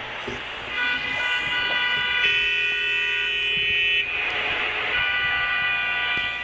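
Electronic horn-like tones, held steady and switching pitch a few times, with a burst of hiss about four seconds in.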